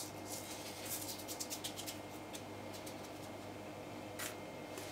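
Semolina being sprinkled from a spoon onto buttered baking paper: faint, irregular light ticks of grains and spoon, busiest in the first couple of seconds, with one more tick near the end.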